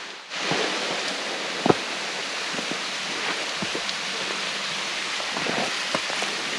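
Steady hiss of falling water, with scattered sharp drip-like ticks, one louder than the rest about two seconds in.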